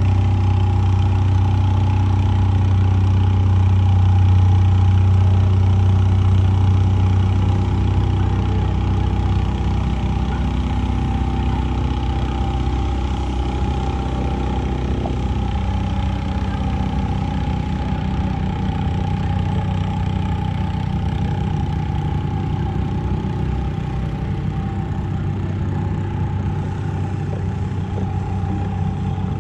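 An engine running steadily: a low hum with a steady higher tone over it, slightly louder in the first few seconds.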